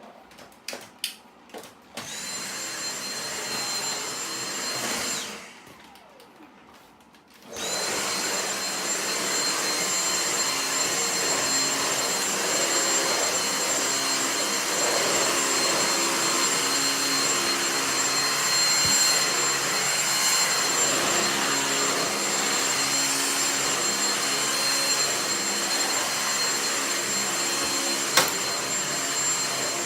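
Vacuum cleaner switched on after a few clicks and running with a steady high whine. It cuts off about five seconds in, starts again a couple of seconds later and then runs steadily, with one sharp click near the end.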